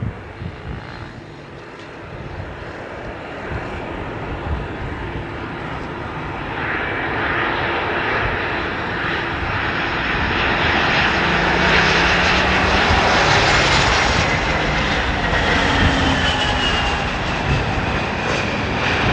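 Airliner's engines growing louder over about a dozen seconds as the aircraft comes close, peaking past the middle, with a whine that falls in pitch as it passes.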